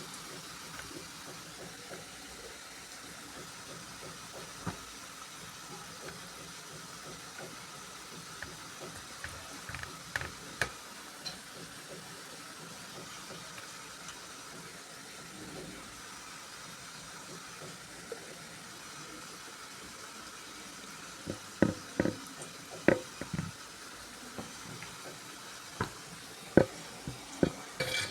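Food sizzling steadily in a hot pan, with sharp clatters of a utensil against the pan, a few near the middle and a loud cluster in the last third.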